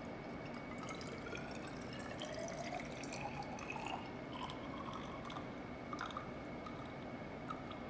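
Dilute hydrochloric acid poured in a thin stream from a bottle into a glass graduated cylinder, with a faint tone that rises in pitch as the cylinder fills.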